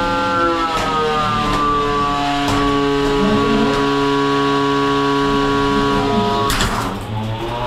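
Combat robot's spinning weapon whining at a steady pitch. The whine drops in pitch about a second in as the weapon slows, then holds. A short harsh burst of noise comes near the end.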